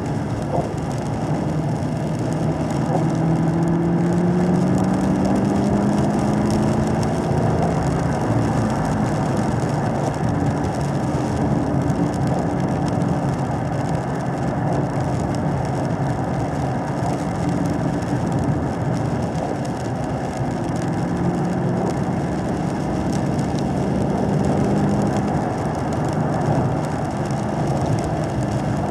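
2017 Camaro SS 1LE's 6.2-litre V8 pulling at low revs, about 2,500 to 3,000 rpm, heard from inside the cabin. Its note rises slowly twice as the car accelerates out of corners, over a steady hiss of tyres on the wet track.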